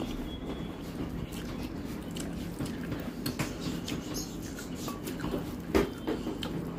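A hand mixing rice and curry on a steel plate: soft squelching with small clicks of fingers and food against the metal, and one louder tap about six seconds in. A steady low hum runs underneath.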